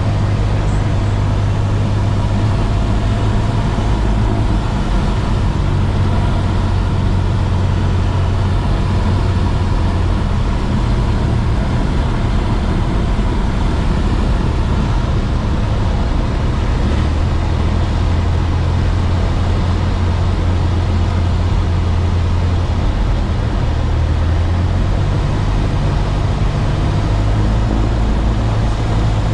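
Cessna 172's piston engine and propeller droning steadily, heard inside the cockpit during a touch-and-go. The pitch shifts slightly a couple of times.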